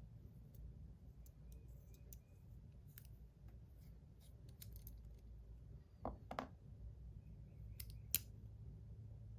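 Small metal spinner parts and loose bearings being handled, giving faint light clicks and taps. There are two louder knocks about six seconds in and a sharp click about two seconds later.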